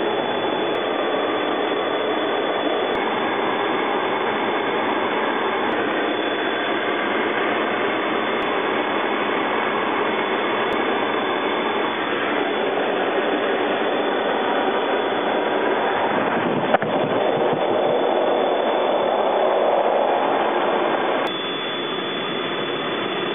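Steady roar of jet engine and airflow noise inside a military jet's cockpit in flight. A single click sounds about 17 s in, and the noise steps slightly quieter about 21 s in.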